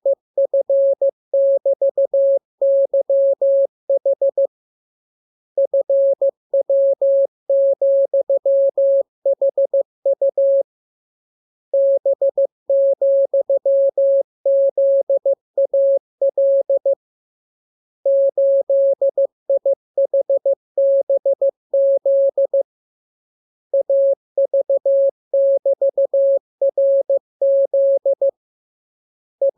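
Morse code (CW) practice tone: a single steady beep keyed on and off into dots and dashes, sent as a radiogram in groups of characters about five seconds long with roughly a second's pause between groups.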